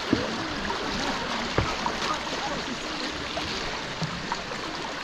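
Moving river water rushing steadily around a whitewater kayak as it is paddled downstream, with two sharp knocks, one just after the start and one about a second and a half in.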